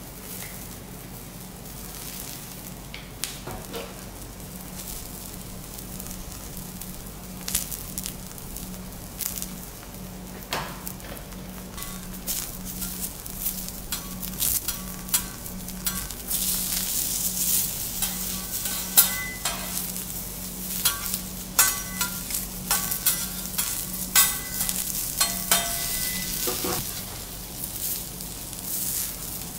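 Vegetables sizzling on a teppanyaki steel griddle, with many sharp clicks and short metallic rings from spatulas striking and scraping the plate. The sizzle grows louder about halfway through, over a steady low hum.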